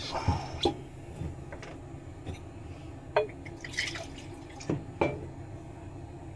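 Bourbon poured from a bottle into a glass: a few separate glugs and light knocks.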